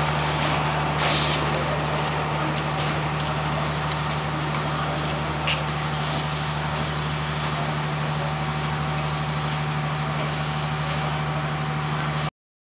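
D19E diesel-electric locomotive engine running with a steady low drone and a steady higher tone over it, with a short hiss about a second in. The sound cuts off suddenly near the end.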